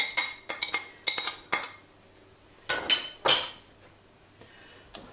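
Cutlery and a china plate clinking against a stainless steel pot as cooked ham is scraped off the plate into the pot: a quick run of sharp clinks, then two louder ones a little under three seconds in.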